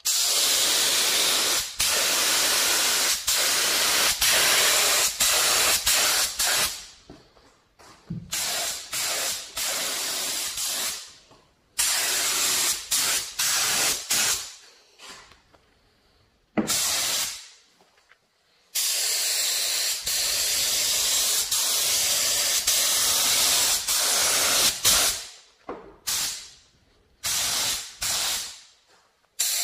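Gravity-feed spray gun hissing with compressed air as it sprays paint. It comes in long bursts separated by short pauses, then several shorter trigger bursts near the end.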